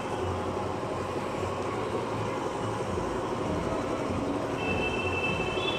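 Steady low background rumble and hiss, unchanging throughout, with a faint thin high tone coming in near the end.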